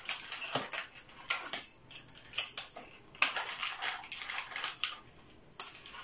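Small metal clinks and clicks with bursts of rustling as a new door lock cylinder and its keys are handled and taken out of their box.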